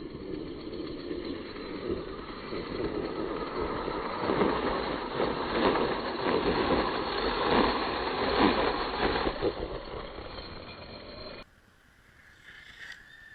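Arrma Kraton 6S RC car skimming across river water on paddle tyres: a loud, rough splashing and rushing noise that builds to its loudest in the middle, fades, and cuts off sharply near the end.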